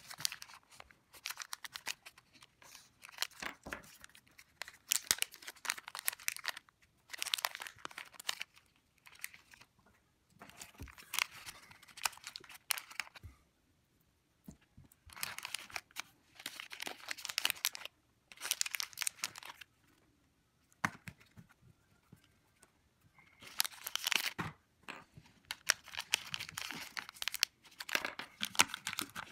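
Small plastic packaging pouches crinkling as hands handle and open them, in repeated short bursts with brief pauses between.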